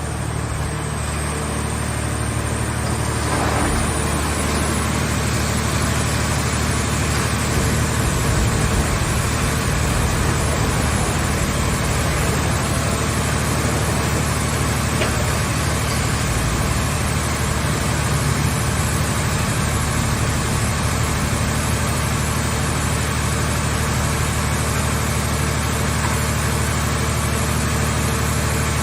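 Engine of a portable vehicle shell baler running steadily, a continuous low hum with mechanical noise over it. It grows slightly louder about three seconds in and then holds steady.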